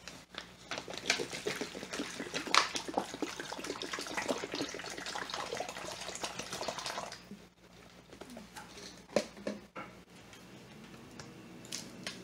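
Water glugging out of a plastic water bottle into a plastic zip-top bag, splashing and gurgling, for about seven seconds. After that come quieter, scattered clicks of plastic being handled.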